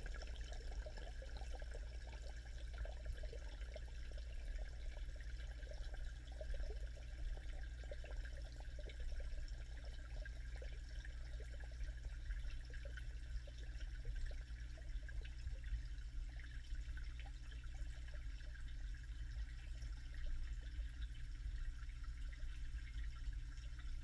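Muffled underwater sound picked up by a camera submerged in a fish pond: a steady low hum under a wash of water noise, with faint scattered crackles that thin out after the first ten seconds or so.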